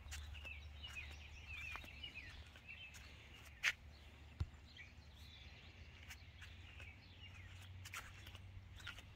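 Faint outdoor ambience: small songbirds chirping over a steady low rumble. A few sharp clicks are heard, the loudest just under four seconds in and again about half a second later.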